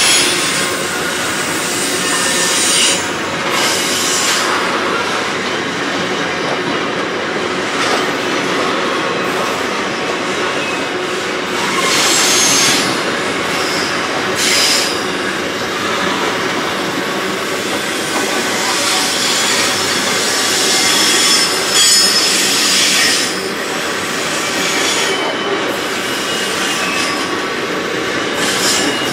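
Freight train box wagons rolling past, a steady noise of steel wheels on rail with short bursts of high wheel squeal every several seconds.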